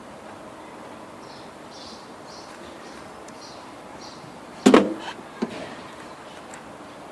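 A few faint light rustles, then a loud sharp clunk about two-thirds of the way in and a smaller knock just after it, from hands-on work at the engine bay's edge.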